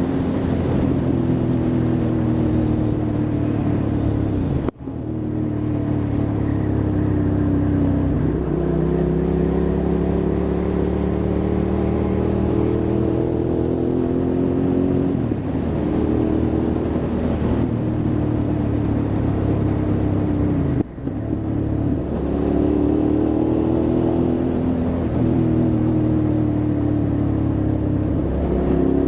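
Hyosung GT650R's V-twin engine accelerating under way: its note climbs steadily for a few seconds, then drops sharply at each gear change, about seven times, with two brief cut-outs of throttle where the sound dips.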